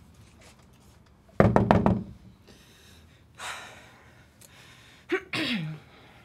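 A quick run of about five loud knocks on a door within half a second. A woman's breathy exhale follows, and near the end comes a short voiced groan that falls in pitch.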